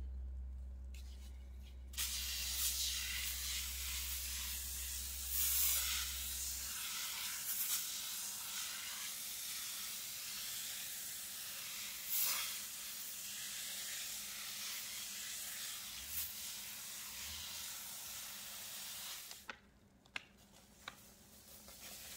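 A steady hiss, like a spray, starts suddenly about two seconds in and drops away near the end, with two brief louder surges along the way.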